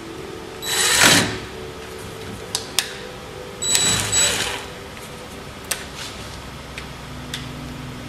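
Cordless impact driver running in two short bursts, about three seconds apart, driving in the screws that hold a door latch in the door's edge. A few light clicks fall between and after the bursts.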